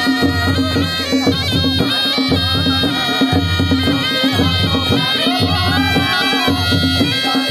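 Nepali naumati baja music: sahanai shawms play a sustained reedy melody over a two-headed dholaki drum beating a steady repeating rhythm.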